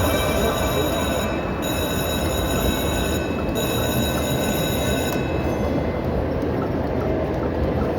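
Casino slot-floor din: dense, steady machine and crowd noise with held high electronic tones from slot machines that drop out briefly twice.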